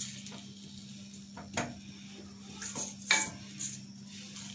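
Wooden spatula stirring and scraping ginger-garlic paste in a stainless steel pot, knocking against the metal a few times, loudest about three seconds in, over a steady low hum.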